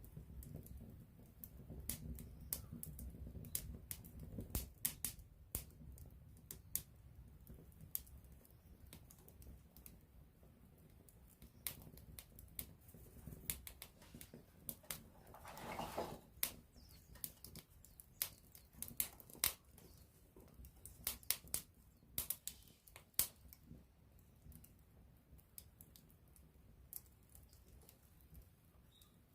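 Wood fire burning close up: irregular sharp crackles and pops over a low flame rumble, with a brief hiss about halfway through.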